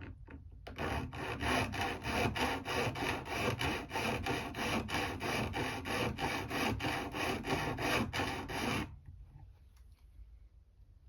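Hand file scraping across the steel tip of a Craftsman screwdriver in quick, even strokes, about three a second, filing down the sides of the blade to narrow it. The filing stops about nine seconds in.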